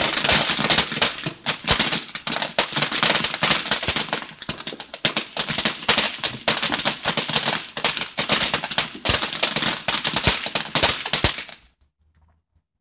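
500-gram ground fountain firework spraying sparks: a steady hiss full of rapid sharp crackles. It cuts off suddenly about a second before the end as the firework burns out.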